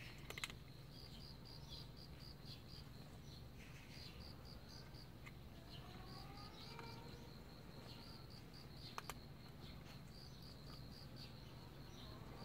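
Faint insect chirping: a high, rapid pulsing, about five pulses a second, in runs with short breaks. A single sharp click comes about nine seconds in.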